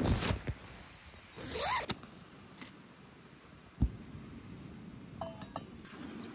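Nylon tent door zipper pulled open in one quick rising rasp about a second and a half in. A single knock follows, then a few light metallic clinks of camp cookware being handled near the end.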